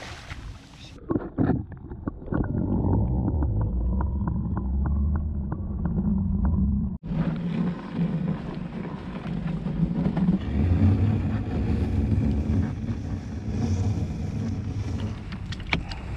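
Prawn-trap line paying out over the side of a small rowboat as the trap sinks, with quick light ticks of the rope running through the hands and over the gunwale, under a steady low rumble of wind on the microphone. It opens with the tail of the splash as the trap hits the water.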